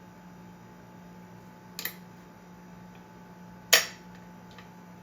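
Two sharp clicks about two seconds apart, the second louder, over a steady low hum.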